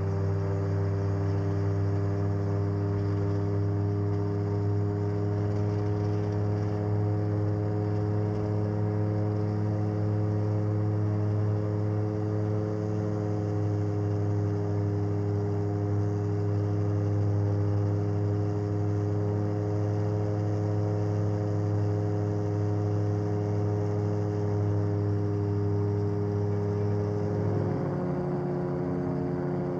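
Gyroplane engine running with a steady drone from inside the cabin as the aircraft rolls along the runway. Near the end the drone changes abruptly to a different steady pitch.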